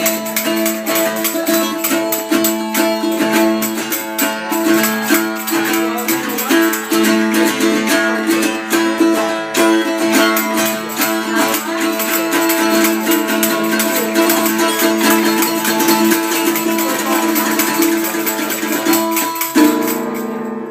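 Live music in a small room: a strummed string instrument holding the same few notes, with a rattle shaking along in quick strokes. The playing shifts near the end and then stops.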